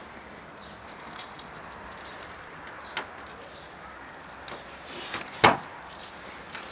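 Steady background hiss broken by a few faint clicks, a short high bird chirp about four seconds in, and one sharp loud knock about five and a half seconds in.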